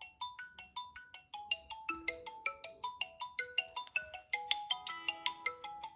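Xiaomi Redmi 9A's default incoming-call ringtone: a quick melody of short ringing notes, about three to four a second, growing fuller in the second half.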